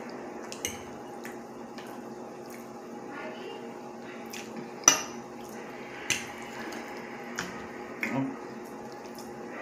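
Metal fork clinking and scraping against a plate as food is picked up. There are several sharp clinks, the loudest about five seconds in, over a steady low hum.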